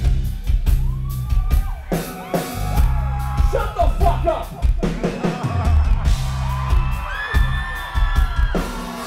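Live rock band playing loud through the PA: drum kit and bass pulsing, with voices calling out and sung phrases gliding over the top. The bass and drums drop out briefly about two seconds in and again near the end.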